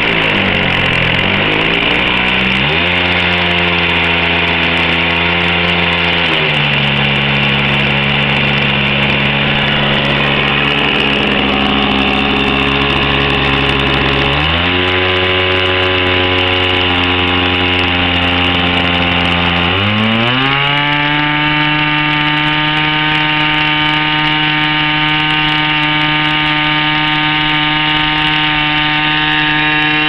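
Mutunuc 65 model aircraft engine running in an RC plane on the ground, its speed wavering at first, then stepping up and down with throttle changes. It settles at its highest, steady speed from about two-thirds of the way through.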